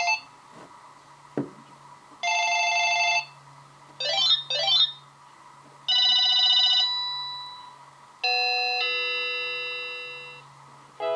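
Panasonic KX-TG1031S DECT 6.0 cordless phone playing its built-in ring tones one after another, each about a second long with a pause between: trilling electronic rings, a pair of quick up-and-down pitch sweeps, and a two-note chime that fades away. A single click sounds between the first two rings.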